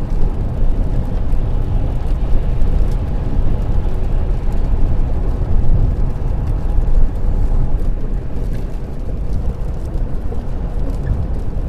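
Road noise inside a car cruising at dual-carriageway speed on a wet road: a steady low rumble of tyres and engine, with a hiss of spray over it.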